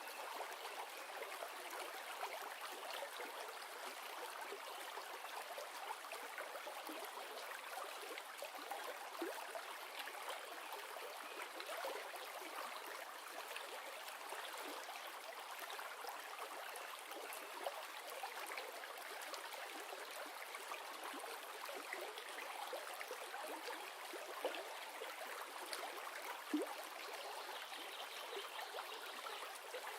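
River water flowing: a steady rush with small splashes and trickles scattered through it.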